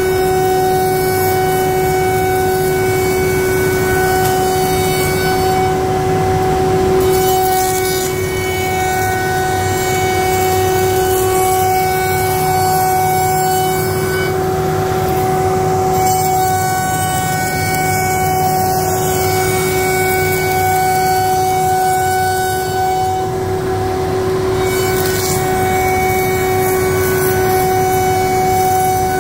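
CNC router machining tenons on timber window rails: the spindle gives a steady high-pitched whine over a hiss of cutting and dust extraction. The hiss thins out briefly three times, roughly every nine seconds.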